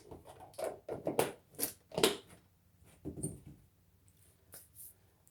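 Kitchen items being handled: a run of short knocks and rustles over the first two seconds, a duller knock about three seconds in, then only a couple of faint clicks.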